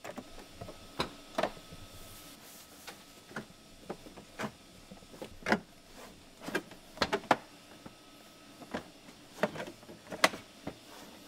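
Plastic center console being worked into position in a car's cabin: irregular clicks and knocks of plastic against the interior trim, the loudest one near the end.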